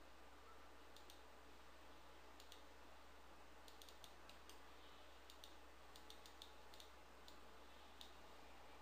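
Faint computer mouse clicks, a dozen or so, most bunched between about four and six and a half seconds in, over a near-silent, faint low hum.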